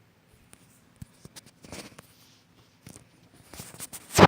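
Scattered light clicks and short scratchy rustles, with a louder sharp knock near the end.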